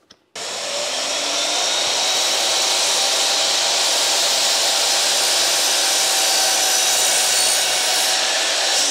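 12-inch mitre saw motor starting abruptly a third of a second in and running steadily at full speed with a whine, as the blade is brought down to shave a very fine sliver off the end of a board, taking off just a pencil line.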